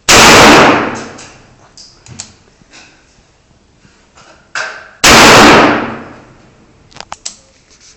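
Two gunshots about five seconds apart, each very loud and followed by about a second of echo, with a few light clicks near the end.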